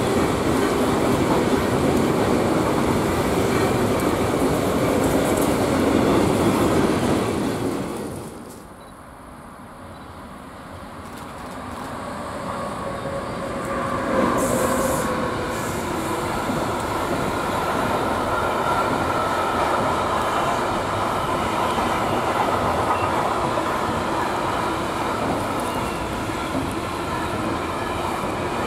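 Long freight train of tank and container wagons rolling past, a steady rumble with wheels clacking over the rail joints. The noise drops sharply about eight seconds in, then builds back up over the next few seconds and holds steady.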